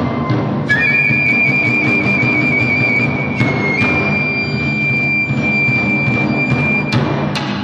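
Shinobue, the Japanese bamboo transverse flute, playing one long high note that steps up slightly about halfway, over drumming.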